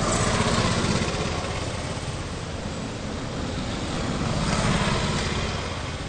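A small engine running, its noise swelling louder twice, about half a second in and again around five seconds in.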